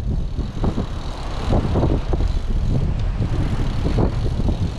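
Strong wind buffeting the microphone: a loud, gusting rumble.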